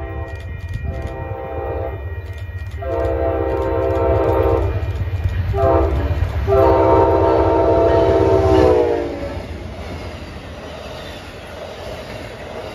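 Amtrak diesel passenger locomotive sounding its horn in the grade-crossing pattern, long, long, short, long, as it approaches. The last and loudest blast drops in pitch as the locomotive passes. A low engine rumble runs underneath, and the passenger cars then roll past and fade.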